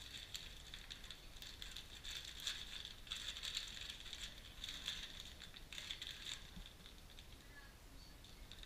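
Plastic packaging bags crinkling and rustling in short crackly bursts as they are handled, until about six seconds in, when the crackle dies down.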